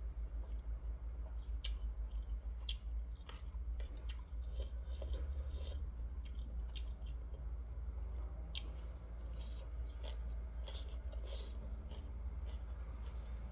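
A person eating close to the microphone: irregular chewing and small mouth clicks, over a steady low hum.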